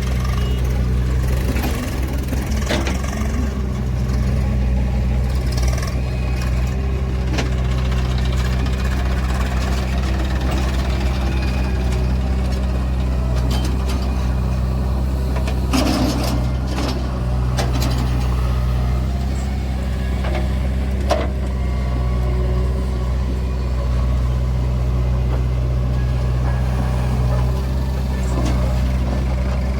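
Heavy diesel engine of a backhoe or tractor running steadily at a constant speed, with a few short knocks or clanks about halfway through and again a few seconds later.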